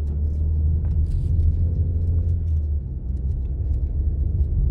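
2011 Chevy Cruze 1.8 L four-cylinder car under way, heard from inside the cabin: a steady low rumble of engine and road, with a few faint clicks. The engine has just had a tune-up with new spark plugs.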